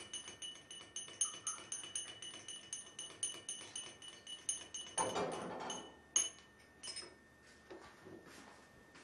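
A metal teaspoon stirring tea in a small glass tea cup, clinking against the glass about four times a second with a bright ringing, then stopping after about six seconds with a few last taps. A brief rush of noise comes about five seconds in.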